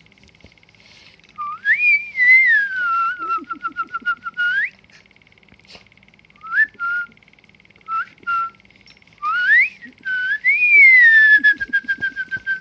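Whistling: a phrase that sweeps up and falls away into a quick run of repeated short notes ending in a sharp upward flick, a few short chirps, then a second similar phrase near the end.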